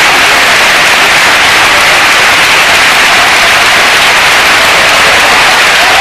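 Football stadium crowd making a loud, even roar of clapping and voices, so loud that it overloads the microphone into a hiss-like wash.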